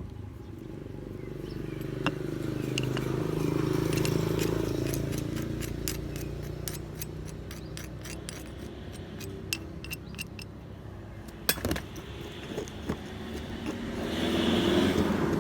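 Betel nut being pounded in a small metal betel mortar: quick, sharp metallic taps and clinks, several a second through the middle, with a few louder knocks afterwards. A low rumble swells around four seconds in and again near the end.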